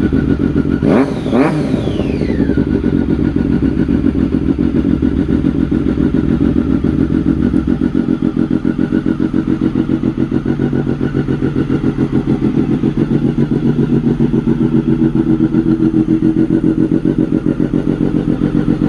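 Triumph Daytona 675's inline-three engine idling, with two quick throttle blips about a second in, then settling back to a steady idle.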